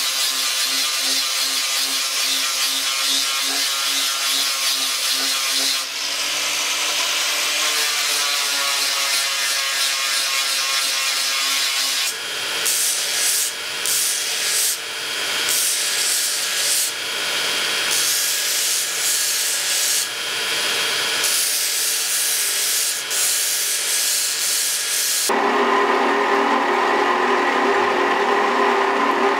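Power tools grinding a small metal sword guard: first an angle grinder, then a belt grinder whose grinding hiss breaks off and returns many times as the steel is pressed to the belt and lifted away, throwing sparks. About 25 seconds in, a second belt grinder takes over with a steadier, more tonal grinding.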